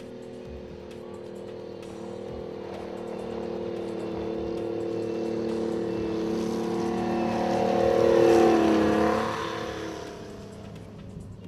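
Armoured military vehicle driving past: its engine whine builds steadily, peaks about eight seconds in with a drop in pitch as it goes by, then fades away.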